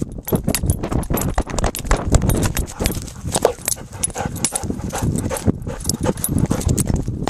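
Quick, irregular thumps and rustling of footfalls and camera knocks while running through grass.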